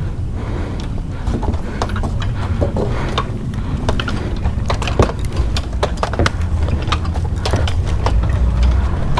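Footsteps knocking on the planks of a wooden boardwalk, roughly two a second, over a low rumble.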